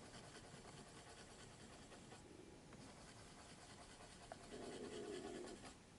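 Faint scratching of a 0.9 mm HB pencil lead, in a Sakura Sumo Grip mechanical pencil, drawing squiggles on paper, a little louder for a stretch near the end.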